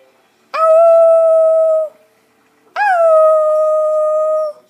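Puppy howling on cue: two long howls, each about a second and a half, that bend in pitch at the start and then hold a steady note, with short silent gaps between them.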